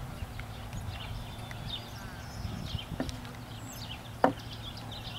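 A horse cantering on turf, its hoofbeats dull and low, with birds chirping. A sharp knock stands out about four seconds in, with a fainter one a second earlier.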